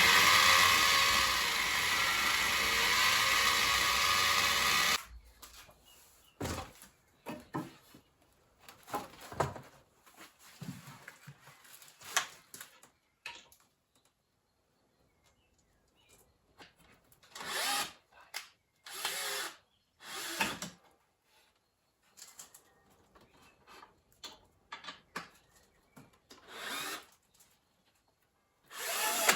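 A power tool runs steadily and stops abruptly about five seconds in. Scattered knocks and short scraping sounds follow as wood is handled.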